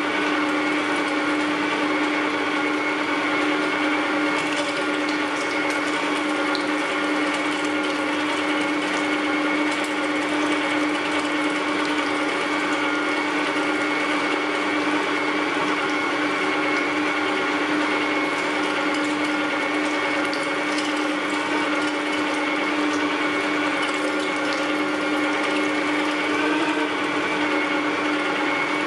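Electric meat grinder running steadily under load with a constant motor hum as meat is forced through the grinding plate, with a few faint clicks over the top.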